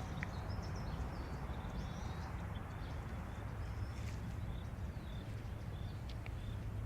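Small birds chirping in short, high calls scattered through, over a steady low outdoor rumble.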